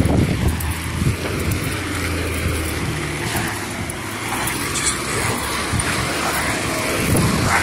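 A motor vehicle's engine running steadily, with road and traffic noise.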